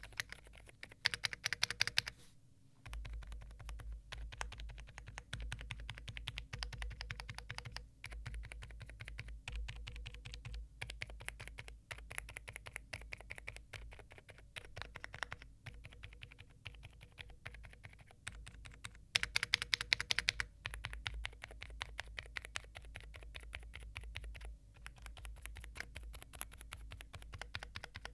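Typing on a Wind Studio Sin65 aluminium-cased custom mechanical keyboard, rapid keystrokes clicking steadily. Louder, sharper stretches come about a second in and again about two-thirds of the way through.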